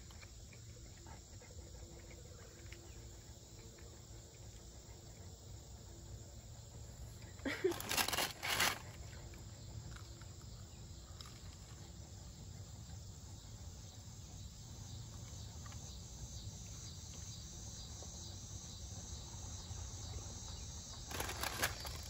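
Insects chirping in a steady, high-pitched chorus over a low background rumble. Two short, louder noisy bursts break in, one about eight seconds in and one near the end.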